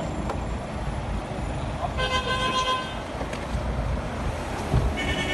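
Road traffic rumble with a car horn sounding for about a second, about two seconds in, then a shorter, higher-pitched horn beep near the end.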